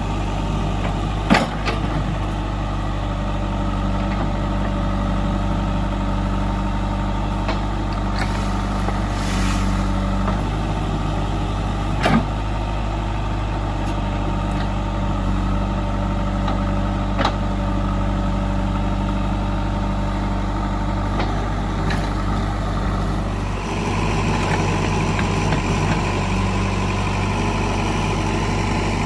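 JCB 3DX backhoe loader's diesel engine running steadily, with a few sharp knocks. About 24 seconds in, the engine note turns harsher and higher, as under more load.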